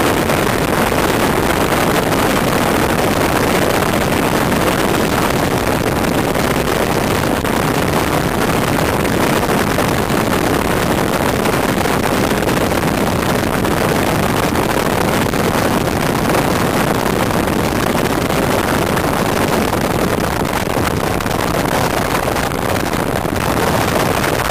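Steady rushing noise of a car driving along at speed: tyre and wind noise heard from inside the moving car, with no change through the stretch.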